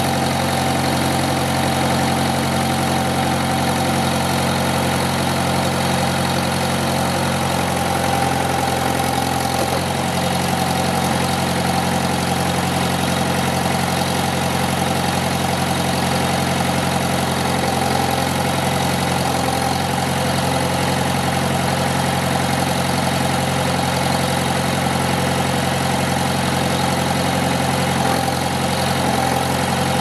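1969 Allis-Chalmers industrial loader-backhoe tractor's engine idling steadily.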